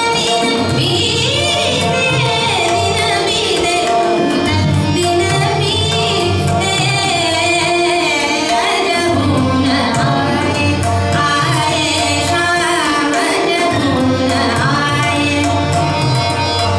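A woman singing Indian classical vocal music in ornamented, gliding phrases, accompanied by tabla and a steady drone.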